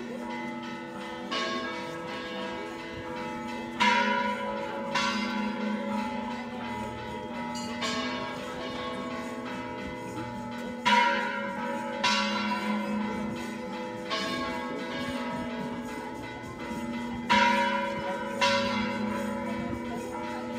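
Church bells ringing: struck tones every one to three seconds over a continuous sustained ring, the loudest strikes about four, eleven and seventeen seconds in.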